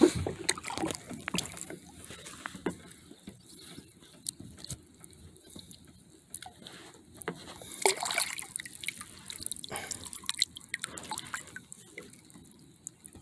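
Lake water splashing and dripping as a stringer of crappies is moved in the water and lifted out, with scattered small clicks and knocks, livelier about eight seconds in.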